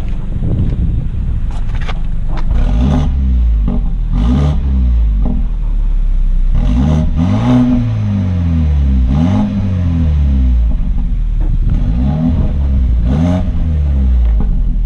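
BMW F30 328i turbocharged four-cylinder engine free-revved about five times, each rev rising and falling back to idle, with the louder intake sound of a newly fitted MST turbo inlet pipe.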